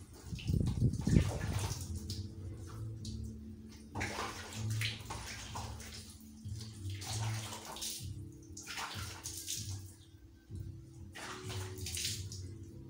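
Water splashing and pouring as a wet dog is washed by hand in a plastic basin, in irregular splashes and pours with short gaps between. The loudest splash comes about a second in.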